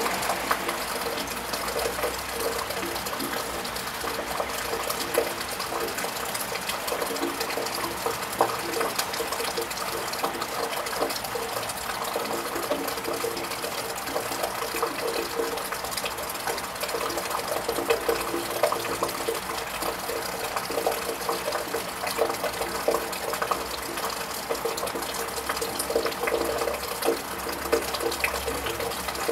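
Steady rain with many close drips and splashes, and water running steadily.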